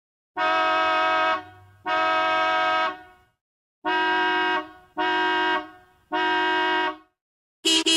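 Vehicle horn sounding four times, each blast a steady, single-pitched honk of about a second, evenly spaced about two seconds apart.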